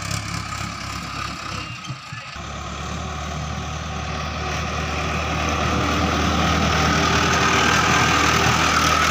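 Mahindra tractor diesel engine running with a steady low hum, growing louder from a few seconds in until it is close and loud near the end.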